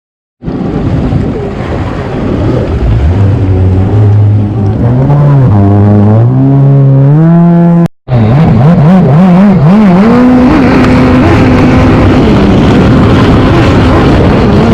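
An engine running and revving, its pitch climbing in steps, under a heavy rumble of wind on the microphone. The sound cuts out for an instant about eight seconds in; afterwards the engine pitch wobbles, then holds steady.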